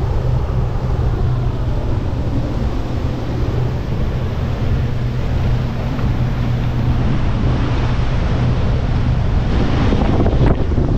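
Wind buffeting the microphone over the rush of churning wake water as a towed inflatable sofa boat skims across the sea behind a speedboat.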